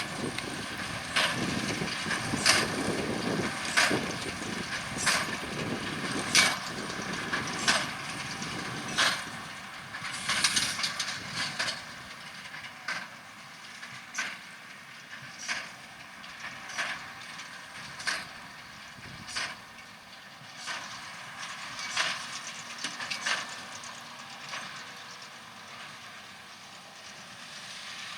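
Massey Ferguson 2170 large square baler working in straw behind a John Deere 6195R tractor: the plunger knocks evenly about once every 1.3 seconds as it packs each flake, over the tractor's running engine. The knocks and engine grow fainter from about halfway through.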